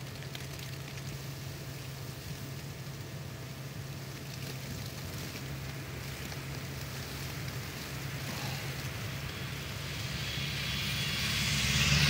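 A car driving along a snow-covered street, its tyre and engine noise swelling over the last few seconds as it comes close and passes, over a steady low hum.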